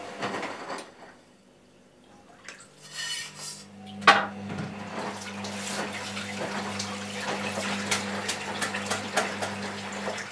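Household clatter of scattered clinks and knocks, with one sharper knock about four seconds in. A steady low hum comes in after a brief near-quiet moment.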